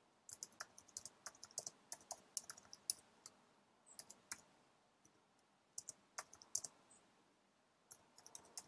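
Faint typing on a computer keyboard: a quick run of keystrokes for the first three seconds, then short scattered groups of key clicks with pauses between them.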